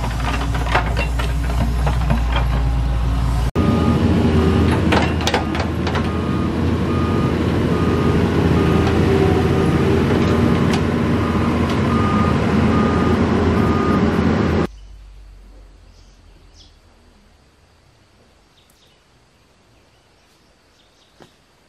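Diesel engine of a Doosan DX140W wheeled excavator running under load as it drives over loose dirt, with knocks and rattles and a steady beeping travel alarm. About 14 s in, the machine noise stops abruptly and only faint quiet outdoor background remains.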